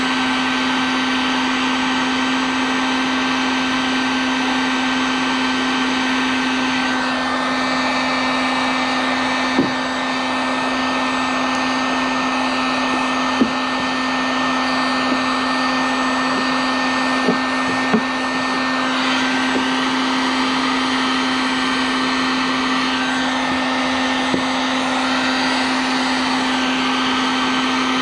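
Harbor Freight heat gun blowing steadily with a constant hum, used to melt plastic and weld a patch into a plastic kayak hull. A few light clicks sound now and then.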